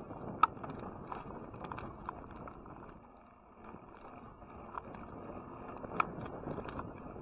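Bicycle rolling along an asphalt road: a steady rush of tyre and wind noise with irregular sharp clicks and light rattles from the bike and its handlebar camera mount. The rolling noise dips briefly about three seconds in.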